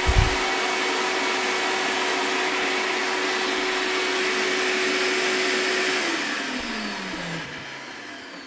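A 6-horsepower shop-vac runs with a steady whine, sucking sawdust and wood shavings through its hose, with a short thump just after the start. About six seconds in it is switched off, and the motor winds down, its pitch falling as the noise fades.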